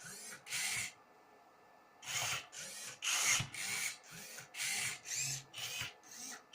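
Motors of a Rubik's cube solving robot turning the cube's faces: a quick run of short whirring moves, about two a second, with a pause of about a second near the start.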